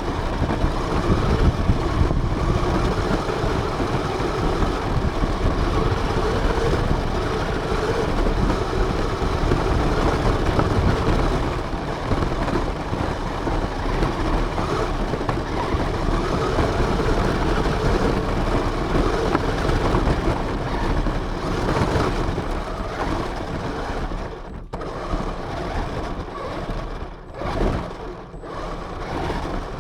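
RC car running, heard from a camera mounted on it: a loud, rough, wavering motor and drivetrain noise mixed with rumble from the wheels over the ground. Near the end the sound drops out briefly several times.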